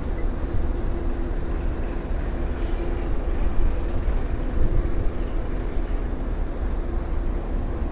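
Steady low rumble of the city and railway yard ambience, with a faint steady hum and no single event standing out.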